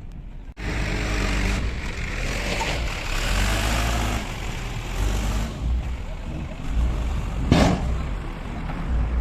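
Heavy diesel engine of road-construction machinery running steadily, starting abruptly about half a second in. A short, sharp hiss comes about three-quarters of the way through.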